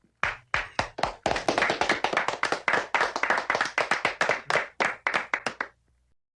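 People clapping their hands: a few separate claps build into steady applause, which thins back to scattered claps and stops shortly before the end.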